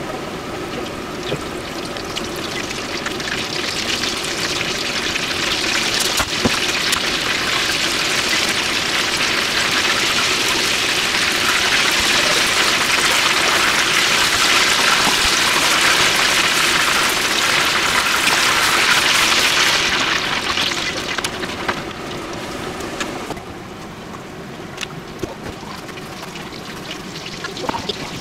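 Breaded pork cutlets deep-frying in a pot of oil: a steady sizzling hiss that builds as more cutlets go in, stays loud for several seconds, then eases and drops off sharply near the end.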